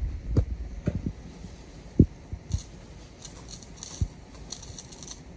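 A handful of dull thumps and light knocks: a cardboard box of instant mashed potato flakes is handled and tipped over a pot of hot water. The loudest thump is about two seconds in, another about four seconds in.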